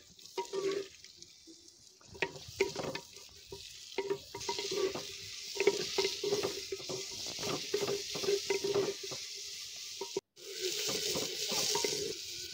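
Sliced onions sizzling in hot oil in a clay pot while a spoon stirs them, scraping and knocking against the pot many times. The sizzle grows louder from about four seconds in and breaks off for a moment near the end.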